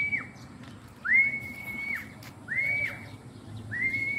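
A pigeon fancier whistling to call a returning racing pigeon down to the loft: a string of repeated whistled notes, a bit over one a second, each sliding up, holding a high pitch, then dropping off sharply.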